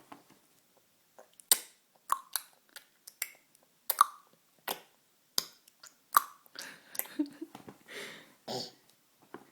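A baby clucking with his tongue: a string of about a dozen sharp, irregular clicks, some with a hollow pop.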